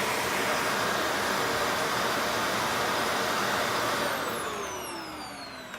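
Shark Rotator Professional Lift Away upright vacuum running steadily, then switched off about four seconds in, its motor winding down with a falling whine.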